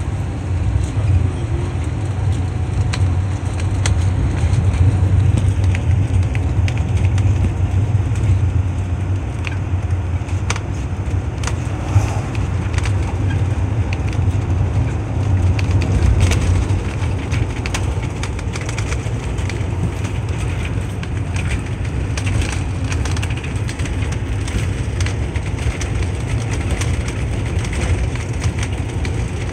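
Car driving along a bumpy road: a steady low rumble of road noise with frequent small knocks and rattles.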